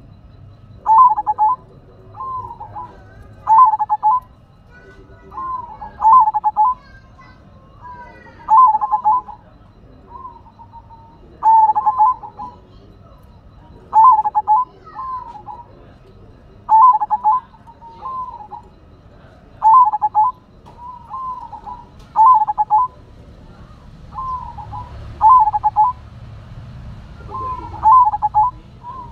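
Zebra dove (perkutut) singing: a short phrase of quick rolling coos, repeated about every two to three seconds, around a dozen times.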